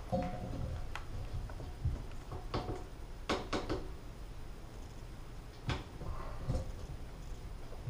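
Scattered clicks and knocks of a strap wrench and a chrome bathtub spout being handled as the spout is turned back slightly on its threads. The loudest knocks come as a pair a little past three seconds in, with another near six seconds.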